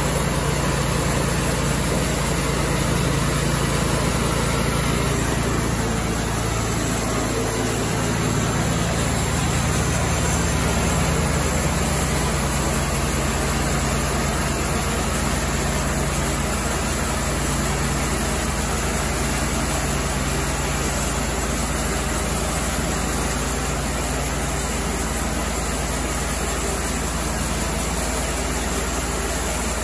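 Engine of a Cook's MP-32 portable bandsaw mill running steadily.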